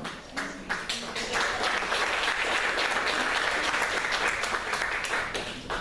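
Audience applauding. It begins as scattered claps, builds to full applause about a second in, and dies away near the end.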